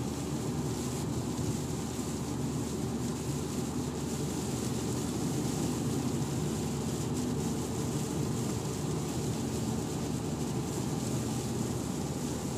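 Steady in-cabin rumble of a car driving on a rain-soaked freeway. Tyres on the wet road, the engine and spray make a low drone, with a fainter hiss of rain above it.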